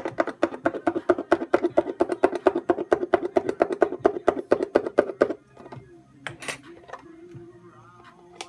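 A thin hand tool tapping rapidly and evenly against a small plastic deli cup, about ten clicks a second, stopping suddenly about five seconds in. Faint music with held notes carries on after.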